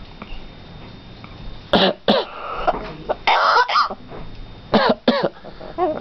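Yellow-naped Amazon parrot mimicking a smoker's cough: two coughs about two seconds in, a longer rasping throat-clearing burst midway, then two more coughs about five seconds in. A pitched call begins right at the end.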